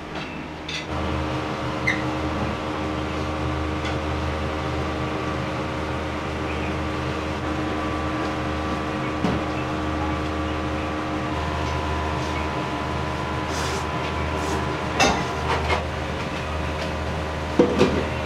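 Steady mechanical hum made of several steady tones, setting in about a second in, with a few short clicks and knocks near the end.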